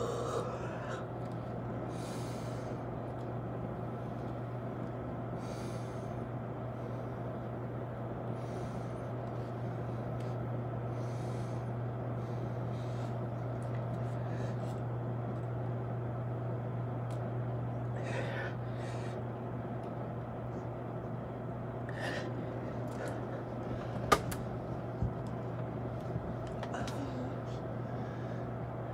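A man breathing hard through his mouth during push-ups: short, forceful exhalations every couple of seconds over a steady low hum, with a single sharp click about three-quarters of the way through.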